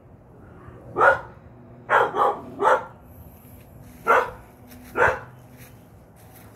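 Small dog barking in six short barks, one about a second in, three in quick succession around two seconds in, then two more spaced a second apart: alert barking at a noise she has heard.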